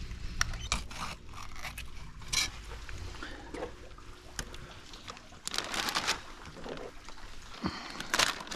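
Wet scraping, slapping and knocking as a salmon is filleted with a fillet knife on a plastic cleaning board, the knife scraping along the board and the fish being handled, with a few longer wet rushes about halfway through and near the end.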